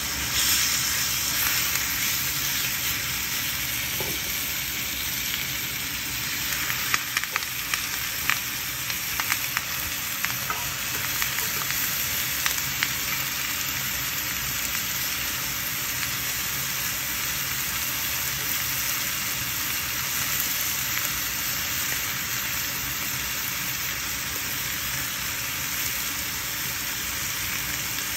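Beef steaks sizzling in a hot ridged grill pan, a steady frying hiss with sharp pops and crackles, thickest about a quarter of the way in.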